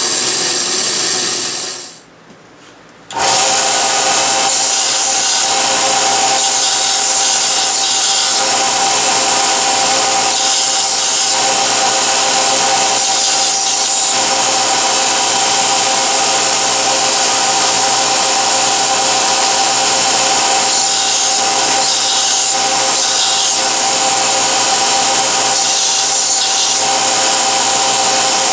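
A bench machine runs down into a short lull about two seconds in. Then a Kalamazoo belt sander runs steadily with a copper gasket ring held against its belt, a steady machine tone under a grinding rub.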